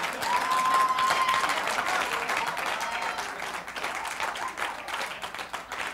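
Theatre audience applauding after a punchline, dense clapping that is loudest in the first two seconds and slowly dies down. A short steady high note sounds over the clapping near the start.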